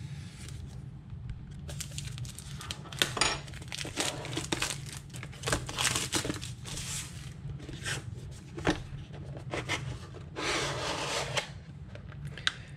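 Clear cellophane wrap being cut, torn and crinkled off a small cardboard box: a run of short, irregular crackling rustles, with a longer one about ten seconds in.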